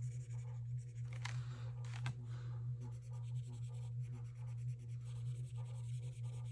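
Felt-tip marker colouring in boxes on a paper savings-challenge card: quick, rhythmic scratchy strokes, a couple of them louder about a second and two seconds in. A steady low hum runs underneath.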